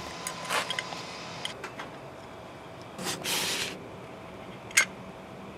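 Faint small clicks and scrapes of a thin metal tool working at the seam of a plastic third brake light housing. There is a short rustle about three seconds in and one sharp click near the end.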